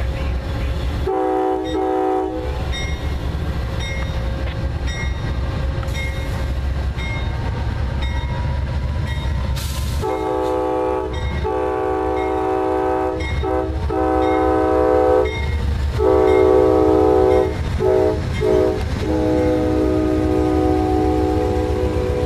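Amtrak GE P42DC diesel locomotive passing close by and sounding its air horn: a brief double toot about a second in, then from about ten seconds on a run of long blasts, two short ones and a final long blast. The diesel engine and rolling wheels make a steady rumble underneath.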